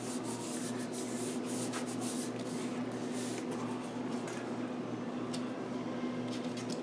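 Hands rubbing and pressing a sheet of patterned scrapbook paper flat onto glued cardstock: a soft, continuous papery rubbing with a few light ticks of paper handling, over a steady low hum.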